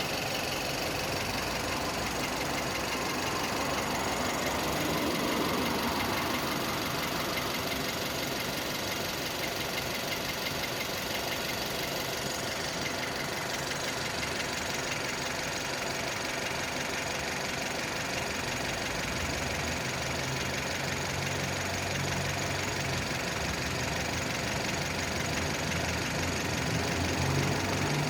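Skoda Octavia A7's 1.6 CWVA four-cylinder petrol engine running at idle with a knock from under the bonnet.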